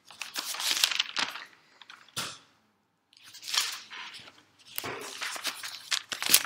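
Rustling and crinkling noise in four or five irregular bursts with short gaps between them.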